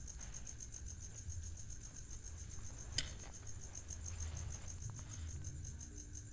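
Crickets chirping in a fast, even pulse, over a low rumble, with one sharp click about three seconds in.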